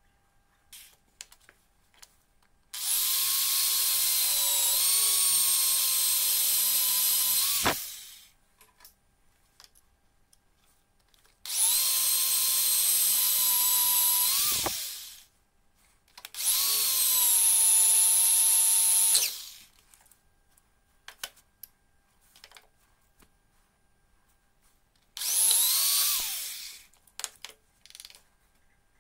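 Corded electric drill boring into a metal workpiece held in locking pliers, run in four bursts of a few seconds each. Each burst is a high motor whine that rises as the drill spins up and drops as it is released.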